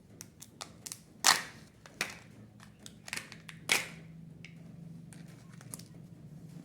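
Sharp clicks and snaps of a Kinder Joy plastic egg and toy capsule being pried and popped open, with two much louder snaps about a second in and just under four seconds in. A faint steady hum sets in partway through.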